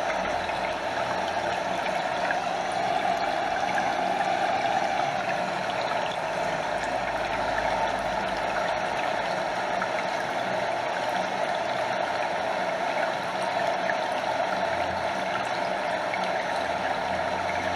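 A stream flowing over a small waterfall: a steady, even rush of water, with water lapping close by.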